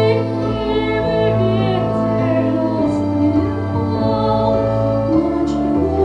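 A woman singing into a microphone with vibrato over instrumental accompaniment; the wavering held vocal line is strongest during the first two seconds, with the accompaniment carrying on underneath.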